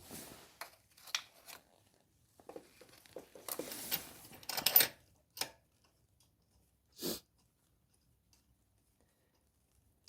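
Hand and tool handling noises while a spark plug is being removed: irregular scraping and rustling, a denser scrape about halfway through, then a couple of single knocks before it falls quiet.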